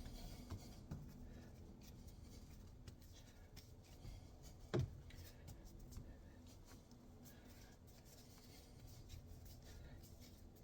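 Faint rubbing and pressing of hands kneading a stiff, dry ball of sourdough starter dough, with a single knock about five seconds in.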